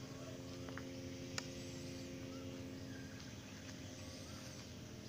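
Faint outdoor background: a steady low hum, with a few faint bird chirps and a single sharp click about a second and a half in.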